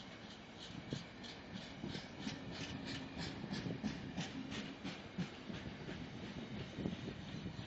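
Freight train of bogie tank wagons rolling slowly past, wheels rumbling on the rails with a run of rhythmic clicks, about three a second, that fade out about two thirds of the way through.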